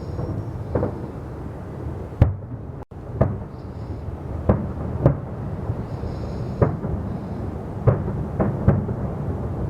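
Fireworks shells bursting overhead, a sharp boom about once a second over a continuous low rumble of reports.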